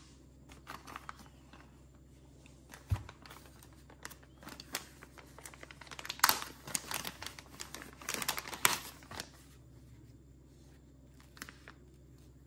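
Clear plastic bag crinkling and rustling as hands open it and pull out a roll of iron-on hem tape, loudest in two spells about six and eight seconds in. A single knock about three seconds in.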